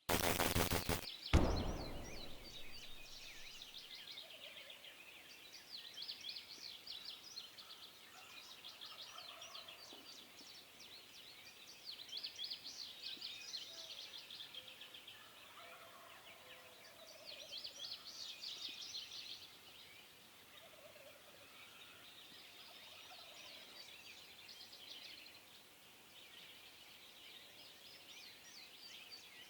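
Wild turkeys gobbling again and again at intervals of a few seconds, as rapid rattling calls. A single loud bang comes about a second in.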